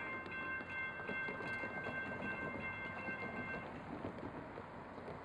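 Railroad crossing warning bell ringing in rapid, evenly spaced strikes, stopping about three and a half seconds in as the crossing gates finish rising. A steady rush of street traffic runs underneath.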